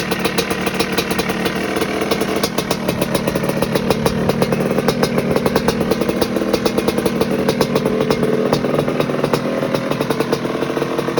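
1986 Maico GM Star 250's single-cylinder two-stroke engine running steadily on its first warm-up after a cylinder-head repair, with a fast, even popping beat.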